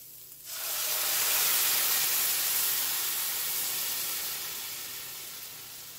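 Blended red chile puree poured into a hot, oiled pan of sautéed onions, setting off a loud sizzle about half a second in that swells within a second and then slowly dies down.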